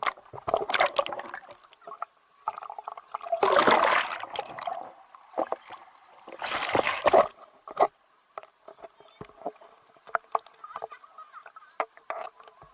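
Water splashing and sloshing, with three larger splashes and scattered small knocks and splatters between them.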